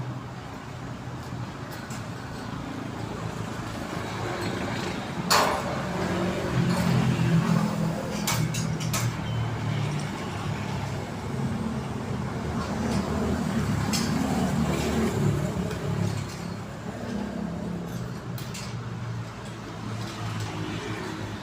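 Low, continuous rumble of a running engine, with a few sharp knocks about five seconds in, around eight to nine seconds in, and again about fourteen seconds in.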